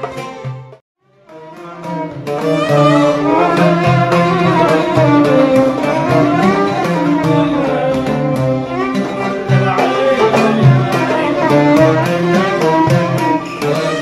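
Arabic ensemble music with a violin playing a gliding melody over hand-drum strokes and oud. The sound drops out completely for a moment about a second in, then the music comes back in.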